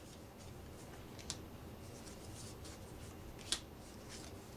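Large glossy playing cards being handled and slid off a small stack on a wooden tabletop: a faint papery rubbing with two light snaps, one about a second in and one past three seconds.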